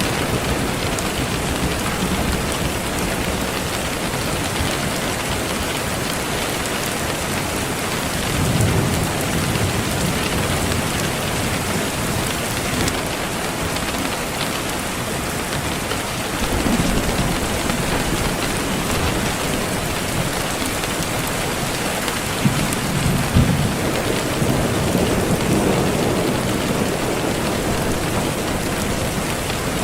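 Steady rain hiss, with low rumbles of thunder about nine seconds in, around seventeen seconds, and again from about twenty-two to twenty-six seconds.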